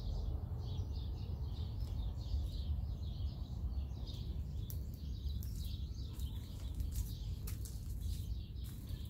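Small birds chirping again and again in the background, over a steady low rumble, with a few sharp clicks in the second half.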